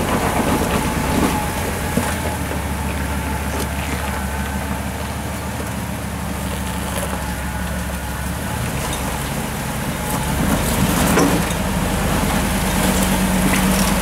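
Jeep CJ engine running at low revs as it crawls up a rock ledge, working harder and louder in the last few seconds, with a few short knocks.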